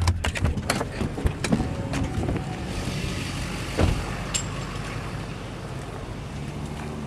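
Clicks and knocks of someone climbing out of a vehicle through its door in the first two seconds, then a single thump about four seconds in, over the steady low hum of an idling vehicle engine.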